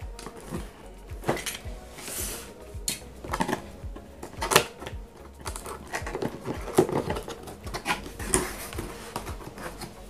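Yellow utility knife slitting packing tape on a cardboard box, with irregular scrapes, taps and rustles of the cardboard and tape, then the box lid being lifted open.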